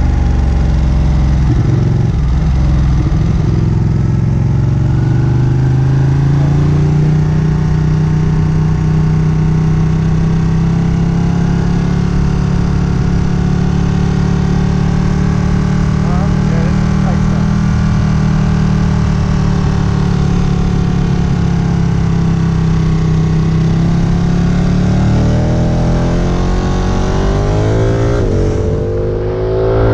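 Sport motorcycle engine under way with wind and road noise. The revs climb over the first several seconds, hold steady through the middle, then climb again near the end.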